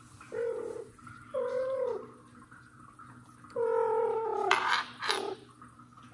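Mother cat meowing three times in drawn-out calls, the second bending up and then down in pitch, followed by two short breathy, hiss-like sounds close together about five seconds in.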